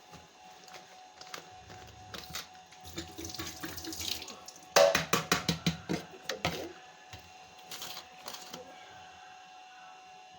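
Cleaning liquid being poured out of a bottle into a sink, with a quick run of loud glugs about halfway through.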